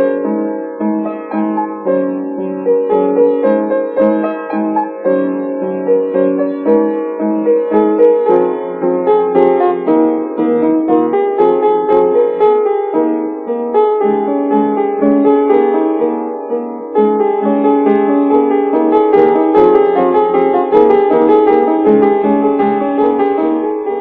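Piano music: a steady run of repeated, evenly spaced notes, growing fuller and a little louder past the middle.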